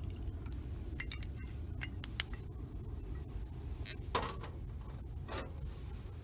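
Wood campfire crackling: scattered sharp pops over a steady low rumble, the loudest pop about two seconds in.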